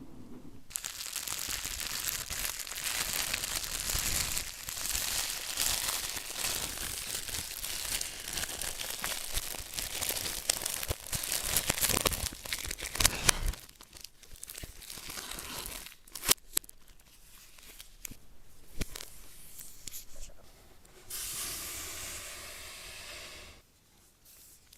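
Packaging being torn open and crumpled by hand for about thirteen seconds. It is followed by a few sharp clicks and handling noises, then a short stretch of steady rustling near the end.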